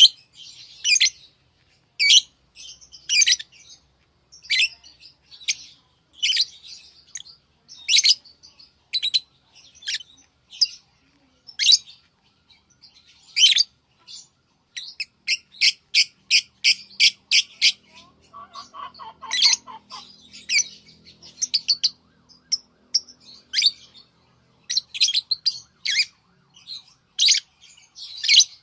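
Pet lovebirds chirping: short, shrill, high-pitched chirps at irregular intervals. About halfway through comes a fast, even run of chirps, followed by a lower, chattering call.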